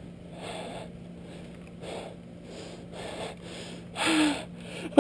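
A person's soft breathing, in short breaths about once a second, with a brief low voiced sound about four seconds in.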